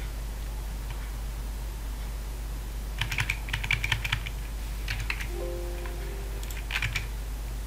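Computer keyboard and mouse clicks in short clusters, over a steady low hum; a brief low tone sounds a little past the middle.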